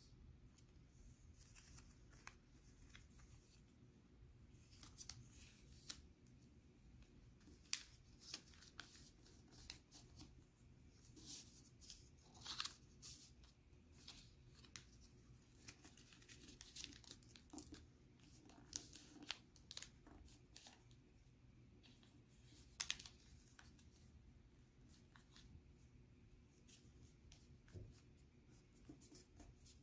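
A square sheet of origami paper being folded and creased by hand: faint rustling with sharp, irregular crinkles, most of them in the middle stretch.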